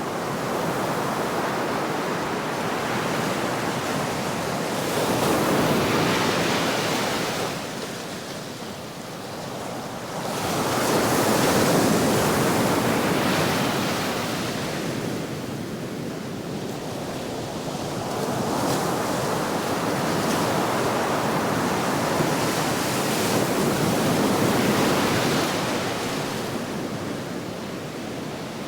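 Medium ocean waves washing onto a shore: a continuous hiss of surf that swells and falls back about every six to seven seconds, with no single crash.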